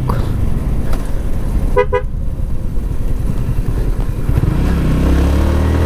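Yamaha R15 V3 motorcycle's single-cylinder engine running while riding, with a quick double horn beep about two seconds in. Near the end the engine note climbs as the bike accelerates.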